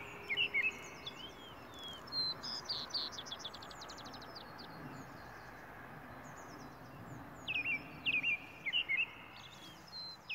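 Small songbirds chirping and calling in bursts, with a quick rattling series about two to three seconds in and another cluster of chirps near the end, over a steady outdoor background hiss.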